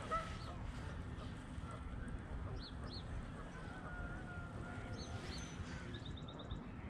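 Wind rumbling on the microphone, with faint drawn-out calls of waterfowl in the middle and a few short high bird chirps, including a quick run of ticks near the end.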